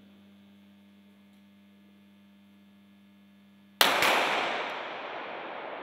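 .22-calibre sport pistol fire about four seconds in: a sudden sharp crack with a long echoing decay, after a steady low hum.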